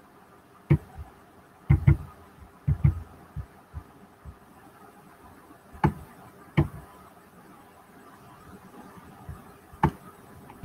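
Scattered dull knocks and taps, about nine, several in quick pairs in the first three seconds and single ones later, over a faint steady hum.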